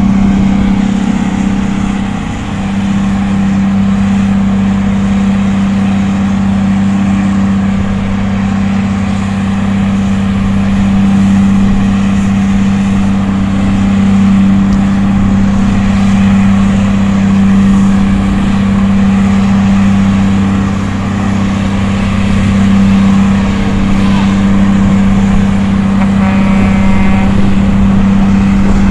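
Heavy diesel engines of a lowboy truck and wheel loader running with a steady low drone.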